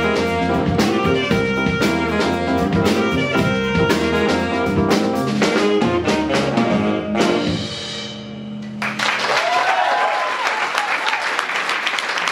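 Youth jazz band with saxophones, electric bass guitar and drum kit playing the final bars of a tune, ending on a held low note about eight seconds in. Audience applause and a cheer follow.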